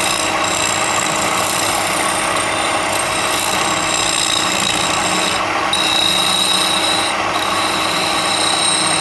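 A power tool working wood, running steadily with an abrasive rasping noise and a steady high whine.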